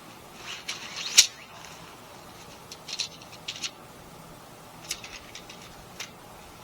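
Short rustles and clicks of tent gear being handled, coming in small clusters, with the sharpest click about a second in.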